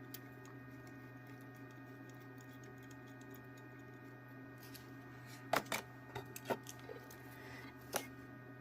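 Light clicks and taps of small repair tools on a phone's charging jack while it is fluxed and tinned with solder, a cluster of them a little past the middle and one near the end, over a faint steady electrical hum.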